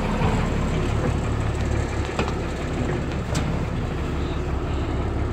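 Cummins diesel engine of a forestry bucket truck running at a steady low drone while it powers the hydraulics raising the chipper dump body. Two light clicks come in the middle.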